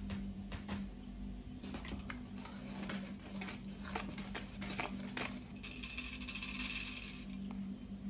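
Wire whisk mixing flour and other dry ingredients in a plastic bowl: quick irregular clicks and taps of the wires against the bowl, with a dry swishing through the powder for a second or so near the end. A steady low hum runs underneath.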